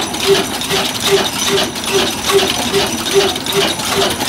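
Old Ruston Hornsby horizontal single-cylinder diesel engine running steadily at slow speed, with a regular beat about two and a half times a second and metallic clatter.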